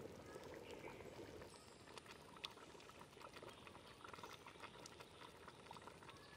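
Faint bubbling and popping of thick haleem simmering in an aluminium pot, with many small irregular pops and one sharper click about two and a half seconds in.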